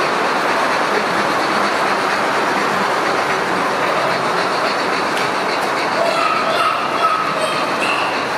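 Model steam locomotive and its passenger coaches running along the layout's track, a steady rolling clatter of wheels and running gear.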